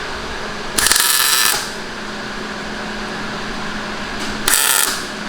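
Two short MIG tack welds on steel, crackling bursts about a second in and again near the end, over a steady shop hum.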